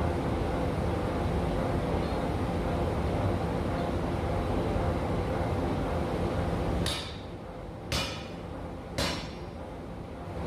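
Massey power hammer running with a loud, steady mechanical noise. About seven seconds in the noise drops, and three sharp metallic clanks follow about a second apart.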